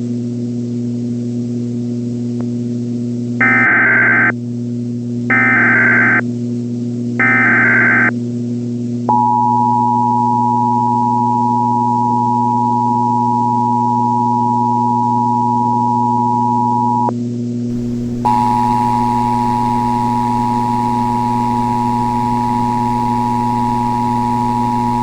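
Emergency Alert System activation: three short bursts of SAME digital header tones, then the two-tone EAS attention signal held for about eight seconds. After a gap of about a second, a second two-tone attention signal begins. A steady low hum runs underneath.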